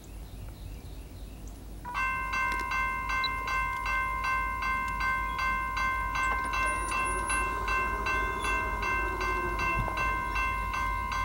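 Railroad crossing's General Signals electronic bells start ringing about two seconds in: an even, ringing ding at about three strikes a second. One of the two bells is very sick and barely audible.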